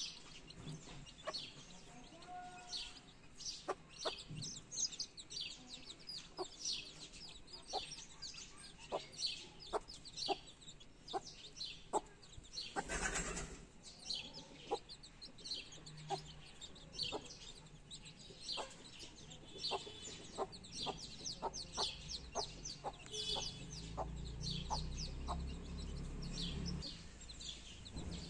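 Newborn chicks peeping constantly in short, high calls, with a mother hen clucking in short low notes. A brief burst of noise comes about halfway through, and a low rumble rises for a few seconds near the end.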